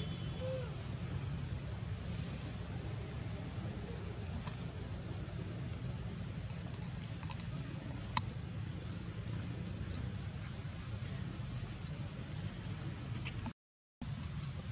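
Insects keep up a steady, high-pitched drone over a low steady rumble, with one sharp click about eight seconds in. The sound drops out briefly to silence near the end.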